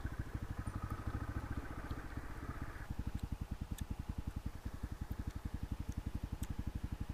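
Crossfire RM250 dirt bike's single-cylinder four-stroke engine running at low revs with a steady, even putter of about a dozen firing pulses a second. A higher hum over it stops about three seconds in, leaving only the engine's beat.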